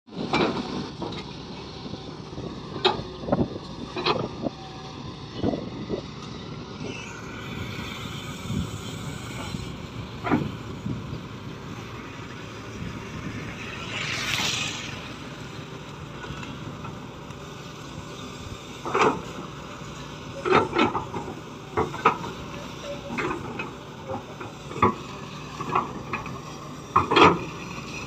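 Matador Shantui crawler excavator's diesel engine running steadily as it digs wet earth, with many sharp clanks and knocks from the bucket and boom linkage. A brief rushing hiss about halfway through.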